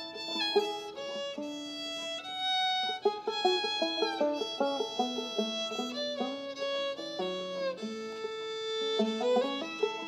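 Old-time fiddle and banjo playing a traditional tune together. The fiddle carries the melody in held, bowed notes with slides between them, while the banjo picks along underneath.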